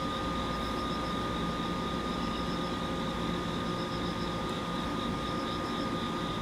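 Steady hum of an electric train standing at a station platform, with a constant thin high whine over a low rumble and a faint, regularly pulsing chirp high above.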